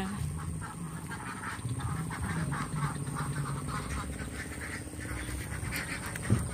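A flock of laying ducks quacking and chattering, many short calls overlapping without pause. A single sharp knock sounds near the end.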